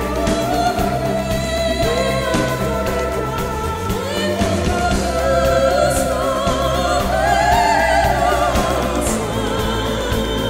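Background music: a singing voice holding long, wavering notes over a steady accompaniment, climbing higher about two-thirds of the way through.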